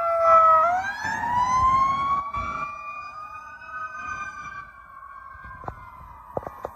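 Emergency sirens of a passing ambulance and fire department squad truck. A two-tone siren drops in pitch as it goes by about half a second in, then a slow rising-and-falling wail takes over and fades as the vehicles move away. A few short clicks near the end.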